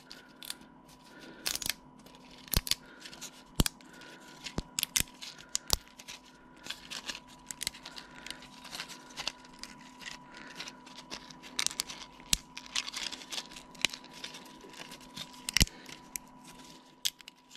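Irregular sharp clicks, cracks and snaps of a 3D-printed plastic part being flexed and peeled off its raft by hand, with a faint steady hum underneath.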